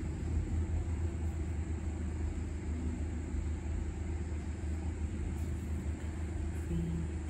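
Steady low background rumble, even in level throughout.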